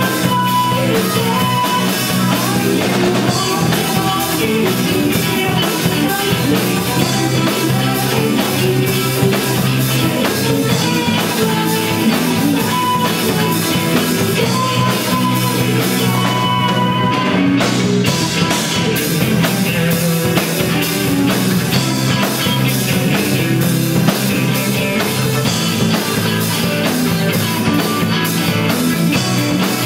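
A rock band playing live, with a drum kit and guitars. The cymbals and high sounds drop out briefly a little past halfway.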